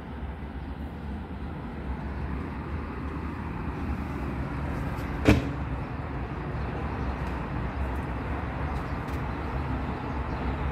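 Steady low outdoor rumble with a faint hiss above it, and one sharp knock about halfway through.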